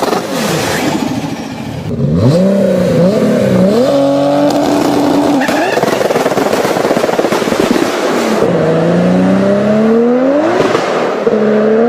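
Toyota Supra engine under hard acceleration. The revs climb steeply through each gear and fall back at each upshift, several times over.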